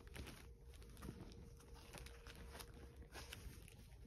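Near silence: faint room hum with a few soft taps and rustles from hands handling a cloth drawstring pouch.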